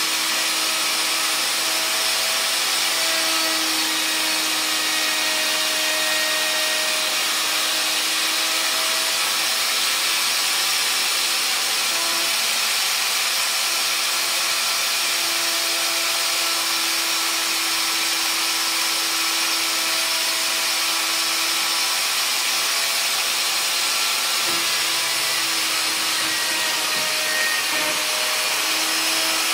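Makita plunge router running steadily with its bit in a pine board: a constant motor whine and hiss, with a faint hum that wavers slightly in pitch.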